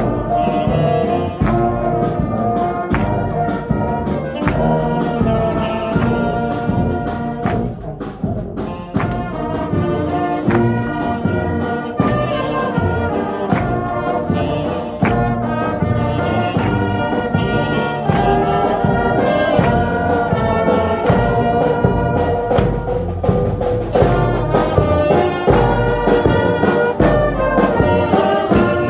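Instrumental music with sustained melody notes over a steady beat.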